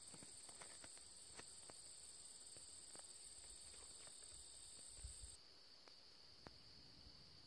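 Faint, steady high-pitched insect trilling in two tones, the higher one stopping about five seconds in, with a few faint scattered ticks.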